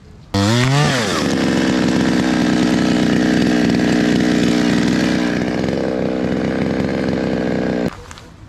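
Chainsaw revving up quickly, then running steadily at high speed for about seven seconds before cutting off suddenly.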